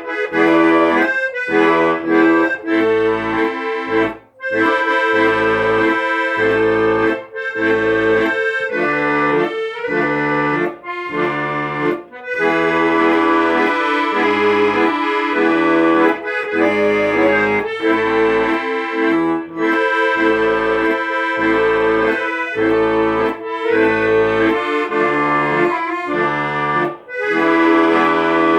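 Accordion playing a tune: a held melody over an even, repeating accompaniment of bass notes and chords.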